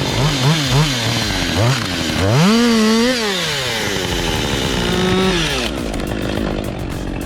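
Chainsaw engine revving up and down as the throttle is worked: several quick blips in the first two seconds, then a longer rev that falls away and settles to a lower, steadier run.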